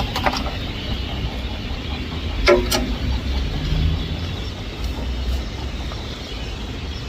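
A few short metallic clinks of hand tools and parts during starter-motor removal, the sharpest about two and a half seconds in, over a steady low rumble.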